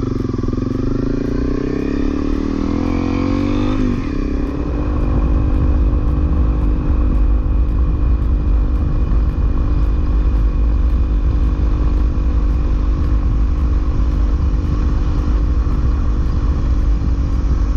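Honda CRF250L single-cylinder four-stroke dirt bike engine pulling away, revs climbing for about four seconds, then running steadily at cruising speed.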